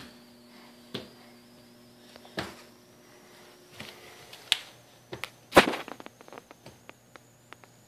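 A baby's hands slapping a hardwood floor and knocking at a wooden kitchen cabinet door as he pulls it open. There are a few separate knocks, the loudest about five and a half seconds in, followed by a quick run of light taps and clatters.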